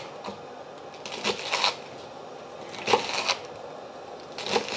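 Chef's knife chopping snow peas on a wooden cutting board: short runs of quick taps of the blade on the board, about every second and a half.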